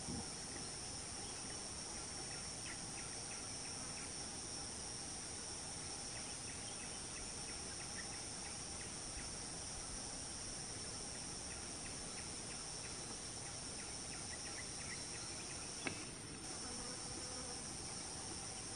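Steady, high-pitched chorus of insects such as crickets or cicadas in forest, with faint short chirps scattered through it and one sharp click near the end.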